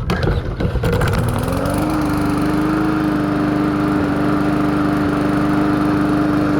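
Small lawn mower engine firing up without the primer bulb pumped, its speed climbing over the first two seconds, then running steadily.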